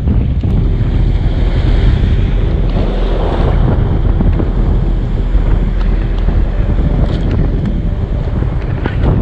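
Strong wind buffeting the microphone over waves breaking and washing on the rocks, a steady loud rumble.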